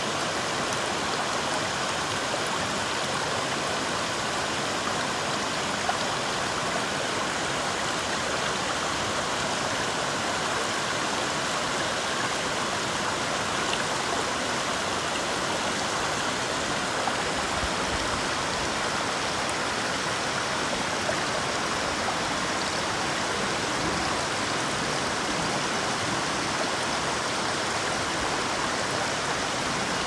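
Shallow stream running over pebbles and stones: a steady, even rush of water.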